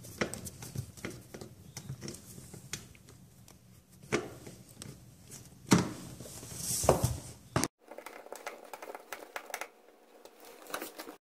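Scattered small clicks and taps of a nut driver and fingers working the ground-wire screw on the range's sheet-metal cord bracket as it is tightened. A few louder knocks come about four, six and seven seconds in.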